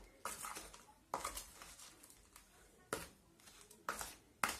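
Dry detergent powder (baking soda, washing soda, citric acid and rock salt) being worked by hand in a plastic container: about five short, separate scrapes and rustles.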